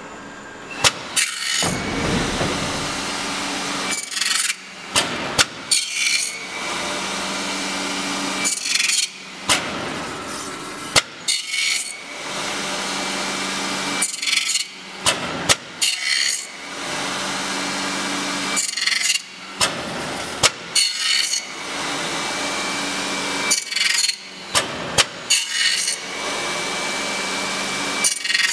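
CNC channel letter bending machine working aluminium profile strip in an automatic cycle. Its drives run steadily between clusters of sharp metallic clacks from the feed and bending heads, which come every two to three seconds.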